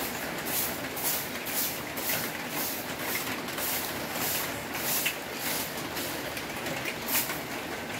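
Broom sweeping a concrete ledge: quick swishing strokes about twice a second over a steady hiss.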